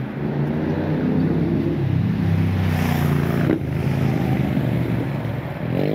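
Motorcycle engine running as it passes close by on the road, its pitched note steady with rushing traffic noise that peaks about three seconds in. Near the end another engine note rises as a vehicle accelerates.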